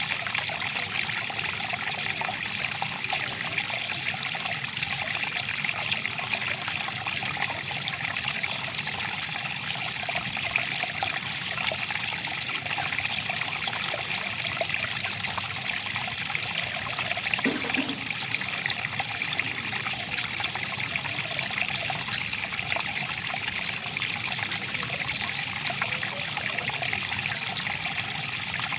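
Water flowing and trickling steadily, an even, unbroken rush of running water.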